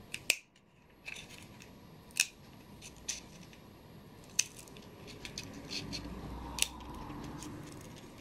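Scissors snipping through a small thin plastic cup: a string of sharp snips about one a second, with softer cutting sounds between them.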